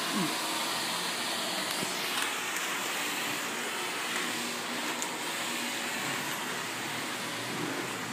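Vacuum cleaner running steadily.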